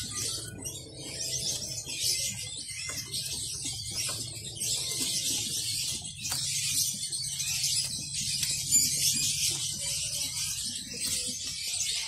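Many caged songbirds chirping and twittering at once, a dense continuous chatter, over a low steady hum.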